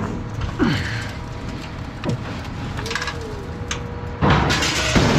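Scrap metal being dragged and shifted: a few short squeaks that fall in pitch, then a loud scraping clatter from a little past four seconds in.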